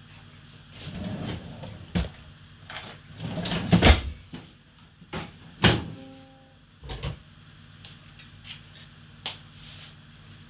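Kitchen knife knocking and scraping on a plastic cutting board as cooked cow foot is cut and scraped off into a bowl: a run of sharp knocks and scrapes, loudest about four seconds in, thinning out toward the end.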